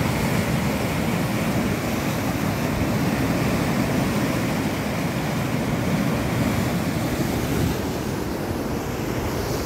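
Turbulent water rushing and churning through a concrete irrigation channel, a steady noisy rush that eases slightly near the end.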